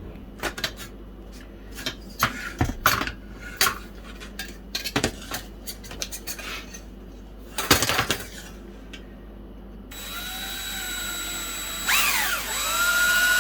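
Sharp clicks and knocks of metal parts being handled, then an electric drill starts about ten seconds in and runs with a whine, its pitch dipping and climbing again as a 5/32 in bit is pressed into a brass rivet. The bit is blunt and not cutting.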